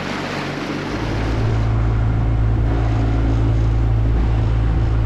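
Outboard motor of a small aluminium dinghy running steadily under way, a low even drone that gets louder about a second in, over the rush of water along the hull.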